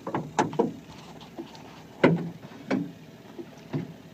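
Irregular hollow knocks against a small boat's hull as a trotline is hauled in hand over hand: a quick cluster of three at the start, then single knocks spaced about a second apart.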